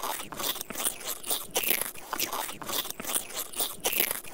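A person chewing crunchy shredded green papaya salad: a run of moist crunches, about two to three a second.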